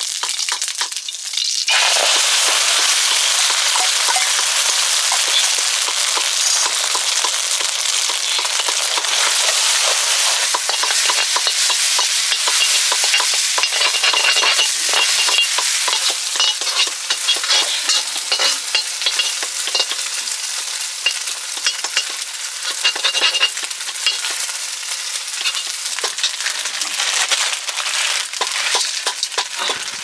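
Food frying in hot oil in a metal wok, with loud sizzling that starts suddenly about two seconds in as the food goes into the smoking oil. The sizzle continues with crackles and the clicks and scrapes of a metal utensil stirring in the pan.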